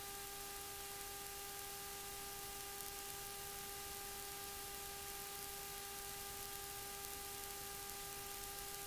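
Faint steady hiss of the recording's background noise, with a constant electrical hum of a few even tones underneath.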